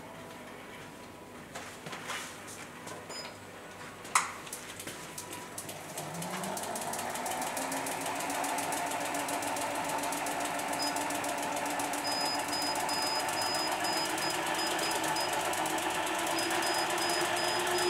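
Wheel-balancing machine spinning a Giant SLR0 carbon road wheel to check its dynamic balance: handling clicks and a sharp click about four seconds in, then from about six seconds in a steady whir that rises slowly in pitch and grows louder as the wheel spins up.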